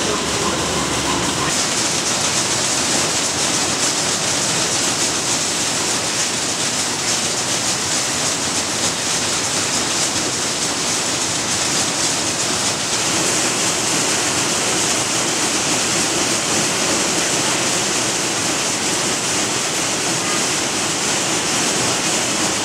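Steady rushing factory-floor noise of a lighter assembly workshop, with no distinct rhythm or tone. Its character shifts slightly about a second and a half in and again about halfway through.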